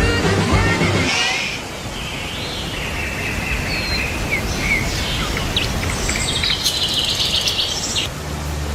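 Birds chirping and calling, with short high notes and quick glides, over a steady rushing outdoor background. Music fades out about a second in.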